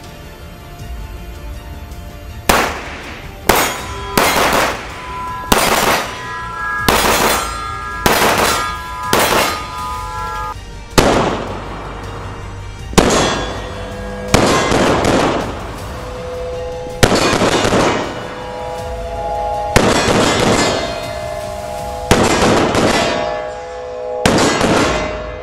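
Walther Q5 Match 9 mm pistol fired about fourteen times at an uneven pace, each sharp shot trailing a ringing echo off the indoor range walls. Background music plays underneath.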